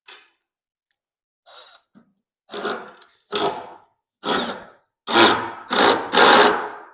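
Power drill driving a screw into wood in a run of short bursts, about eight, each louder than the last as the screw seats.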